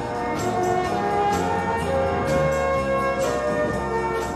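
Background instrumental music with a melody of held notes that change every half second or so.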